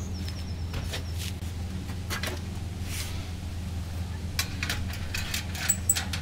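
Clicks, taps and light metal knocks of hands working the door and lower trays of an electric smoker, busiest in the last two seconds, over a steady low hum.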